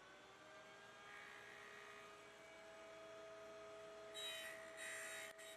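Faint, steady hum from a running table saw, several tones that settle to a steady pitch in the first half second. Two short hissy scrapes come about four and five seconds in, as the blade is raised into the PVC pipe.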